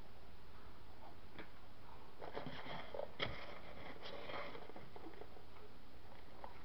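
A hand rummaging through foam packing peanuts in a styrofoam-lined shipping box: a cluster of rustling and light clicks from about two to four and a half seconds in, with one sharper click near the middle.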